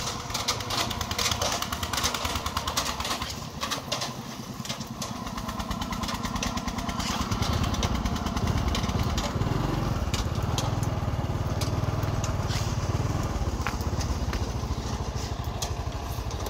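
Single-cylinder diesel engine of a công nông farm tractor-truck running with a fast, steady pulse. It grows louder and heavier from about six seconds in, then holds.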